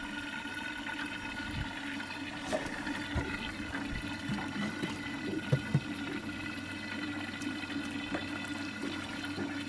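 Water sloshing and splashing around a small boat during a fish fight, under a steady hum, with two sharp knocks about five and a half seconds in.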